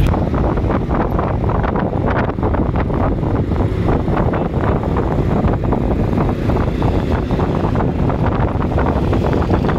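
Wind buffeting the phone's microphone in a moving car, in constant gusts, over the low rumble of the car and road.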